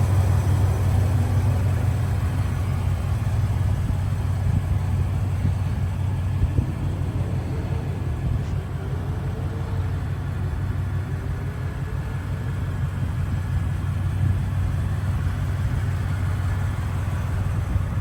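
Ford Raptor R's supercharged 5.2-litre V8 idling steadily, a deep, even idle with no revving.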